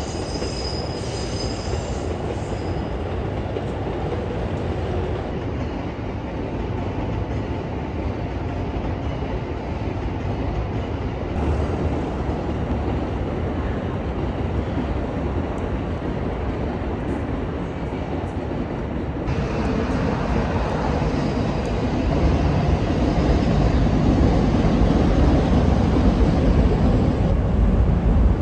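Trains running on an elevated railway: a steady rumble of wheels on rails, changing abruptly a few times and growing louder over the last several seconds.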